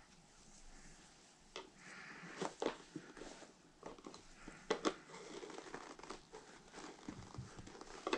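Hands working a soft rubber paddle tire's bead onto a 1/5-scale RC car wheel: irregular rubbing and scraping with scattered sharp clicks and snaps, the loudest about two and a half and five seconds in.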